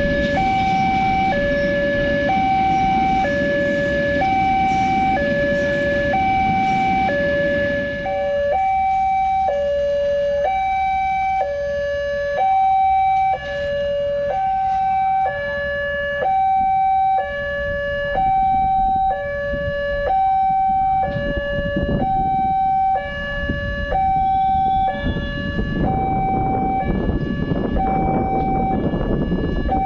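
Railway level-crossing warning alarm sounding a steady two-tone signal, switching between a lower and a higher tone just under once a second. A passing freight train's rumble runs under it for the first eight seconds or so, then falls away, and a low rumble rises again near the end.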